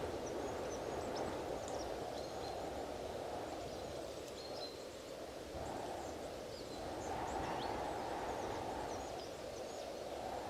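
Strong wind blowing, easing and swelling again in gusts, with many short, high chirps of small birds above it.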